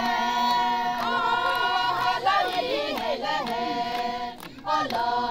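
A group of women singing a traditional Sumi Naga song in unison, with long held notes, a short break about four and a half seconds in, then the singing starts again.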